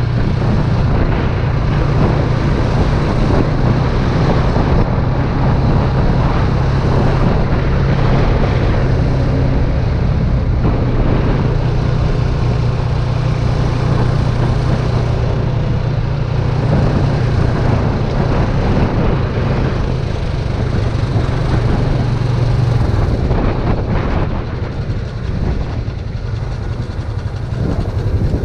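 ATV engine running steadily under way, with wind and road noise over it. The engine's low hum eases off and the level drops slightly about three quarters of the way through.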